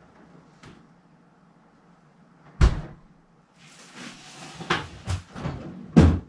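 Household knocks and clatter off to the side, like a cupboard or door being handled: one sharp knock about two and a half seconds in, then a couple of seconds of rustling broken by several more knocks, the loudest near the end.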